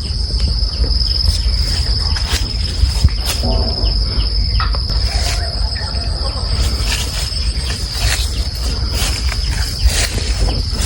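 Insects keep up a steady, unbroken high-pitched trill. Under it runs a loud low rumble, with scattered short clicks.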